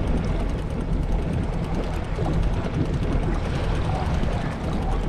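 Boat motor running steadily, a low even drone.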